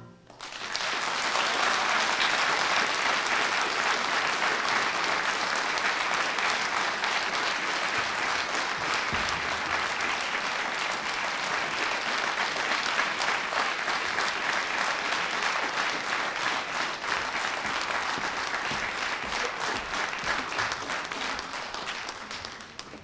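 Audience applause, building in the first second and dying away near the end.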